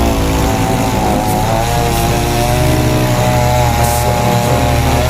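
Chainsaw engine running steadily while cutting wood.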